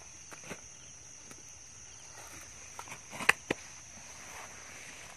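A steady high-pitched insect chorus, with a few scattered clicks and knocks. The sharpest knock comes a little past halfway through.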